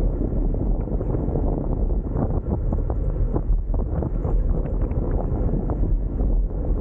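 Wind buffeting the microphone of a camera riding on a moving bicycle: a steady low rumble with faint scattered ticks.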